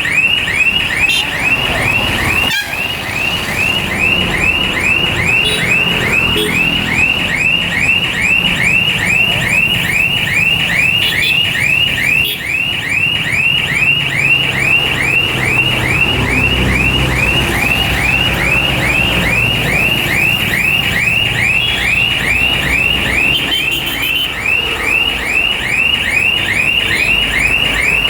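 Electronic warning alarm chirping rapidly and continuously, about two high chirps a second, over a low engine rumble.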